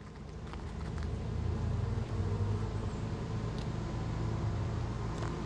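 A steady low hum of honeybees buzzing around an open hive, with a few faint clicks.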